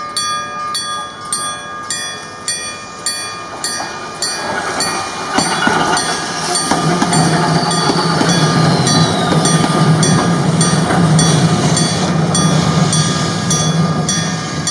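Level-crossing warning bell ringing steadily, about two strokes a second. From about four seconds in, a Randen (Keifuku) tram approaches and rolls across the crossing with a low, steady rumble and a brief falling whine.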